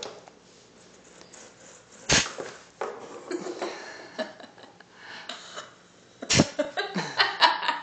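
Kitten playing in a plastic ball-track cat toy. There is a sharp thump about two seconds in, then a quick run of knocks and clicks near the end as the toy's track and ball are knocked about.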